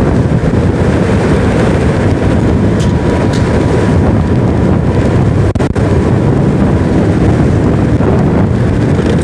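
Strong wind buffeting the microphone of a moving motorcycle, a loud steady rush heaviest in the low range, with the bike's engine and road noise underneath.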